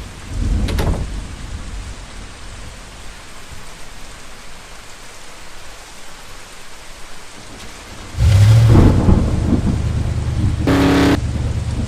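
Steady rain with a rumble of thunder swelling about half a second in. About eight seconds in a loud, deep, steady rumble sets in and holds, with a brief brighter pitched burst near the end.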